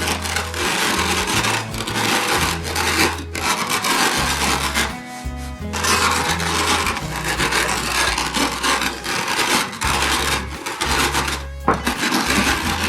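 Heavy rolling pin rolled back and forth over cooled toasted rice, crushing the grains into coarse rice flour with a gritty rubbing sound, in strokes of a second or two each with short pauses.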